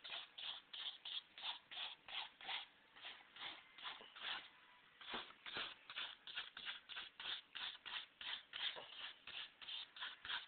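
Oil paint being worked quickly onto a canvas: rapid, faint back-and-forth scrubbing strokes, about three a second, with a brief pause near the middle.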